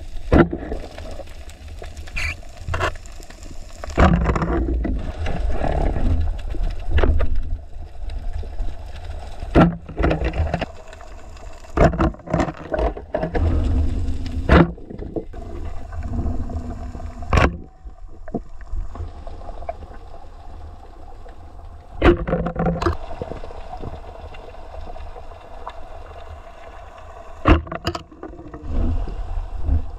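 Muffled underwater sound picked up by a camera in its waterproof housing: a steady low rumble of moving water, broken by many short, sharp knocks and clicks at irregular intervals.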